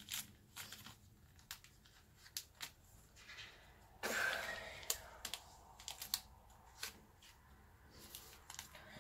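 Trading cards being handled and slid into the clear plastic pockets of a binder album: soft crinkling of the plastic sleeves with light taps and rustles, and a longer rustle about four seconds in.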